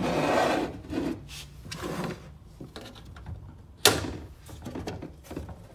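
Hands handling the sheet-metal case of a Start Kemper 170 welder. It is mostly rubbing and scraping on the metal, loudest in the first second, with one sharp click or knock a little under four seconds in.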